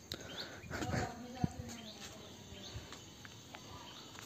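Outdoor background: a bird giving short falling chirps several times, a faint voice in the background about a second in, and a sharp click about a second and a half in.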